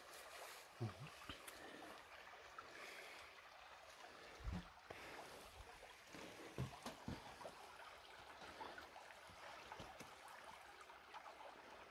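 Faint steady rushing noise with a few soft, irregular low thumps.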